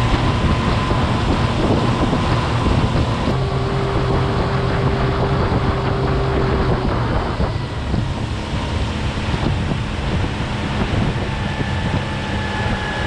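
A small RIB's outboard motor running under way, a steady engine hum under heavy wind buffeting on the microphone. The engine note shifts abruptly about three seconds in.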